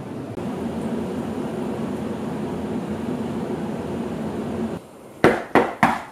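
A steady low hum that drops away near the end, followed by three quick, loud knocks on a front door.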